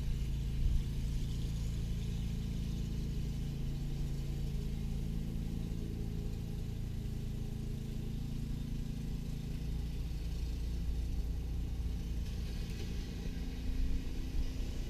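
Cummins diesel engine in a pickup idling steadily while cold, with a low rumble under it.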